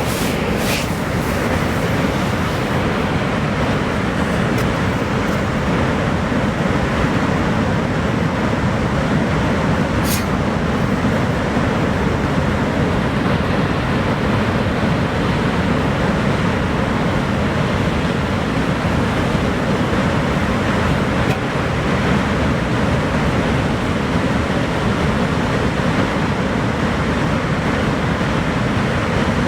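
Niagara Falls' water pouring, a steady, dense rush of falling water heaviest in the low range.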